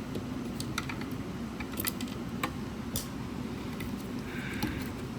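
Scattered light clicks and taps from handling the parts of a disassembled loudspeaker, over a steady low background hum.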